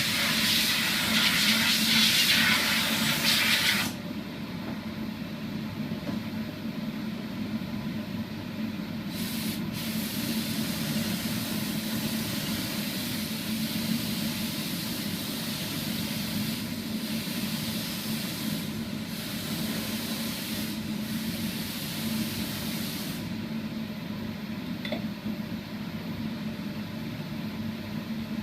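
Spray gun hissing as it sprays sanding sealer onto a guitar body: a loud burst for the first four seconds, then a softer spray with a few brief breaks that stops near the end. A steady low hum runs underneath.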